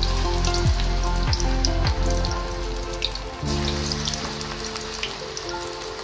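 Hot oil sizzling and crackling steadily as fritters deep-fry in a pan, with background music underneath.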